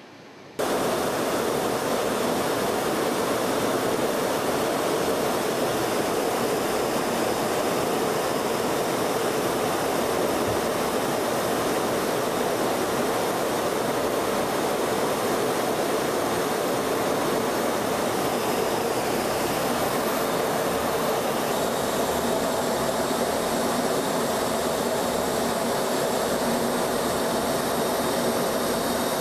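Steady jet aircraft noise in flight, an even rushing sound that starts abruptly about half a second in and holds level.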